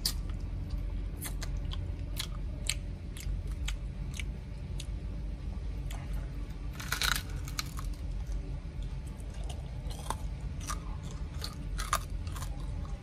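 Close-up chewing and biting on crispy deep-fried crocodile head: irregular sharp crunches, loudest about seven seconds in and again near the end.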